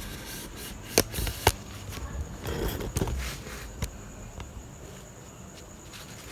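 A few sharp knocks and clicks of metal motorcycle parts being handled and fitted at the rear wheel, over low handling noise. The loudest come about a second in and again half a second later, with more around three and four seconds in.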